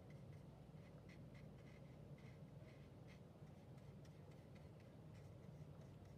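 Near silence with faint, irregular scratching of a watercolour brush rubbing a dried dot of paint on a paper dot card.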